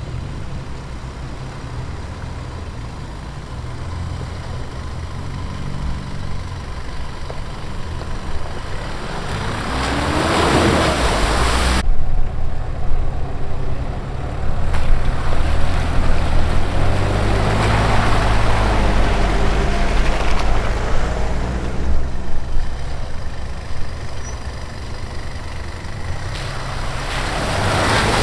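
Off-road 4x4 SUVs driving one by one through a shallow stream. The engines pull under load and grow louder as each vehicle comes close, with water splashing around the tyres as they pass. The sound breaks off suddenly twice, about twelve and twenty-two seconds in.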